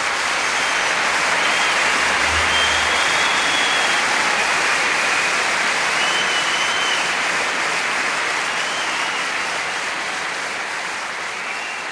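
Audience applause, with a few thin high whistles over it, slowly dying down toward the end.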